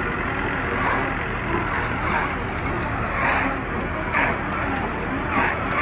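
A tractor-drawn round baler at work: the tractor engine runs steadily under the baler's machinery, with a rhythmic swishing clatter about once a second.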